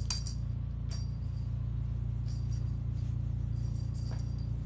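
A small metal bell jingles faintly and briefly four times, spread out, over a steady low hum, as a kitten plays with a wand toy.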